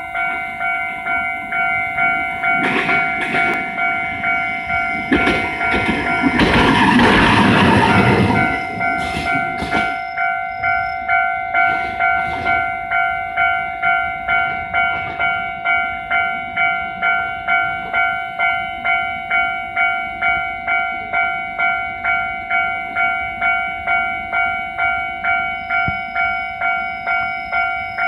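Japanese level-crossing warning bell ringing about twice a second, on and on, while an Iyo Railway train passes. The train is loudest about six to eight seconds in, its wheels clicking over rail joints in pairs, and then fades while the bell keeps ringing.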